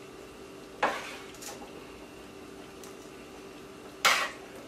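Metal kitchen tongs clinking against a pot as chicken pieces are packed into a simmering coconut sauce: two sharp clinks about three seconds apart, with fainter taps between them, over a faint steady hum.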